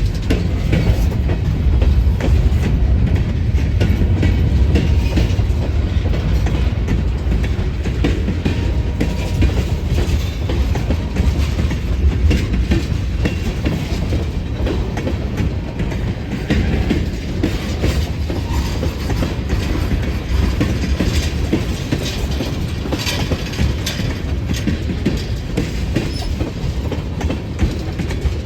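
Great Lakes Central Railroad train rolling steadily past: a continuous low rumble with wheels clicking over the rail joints.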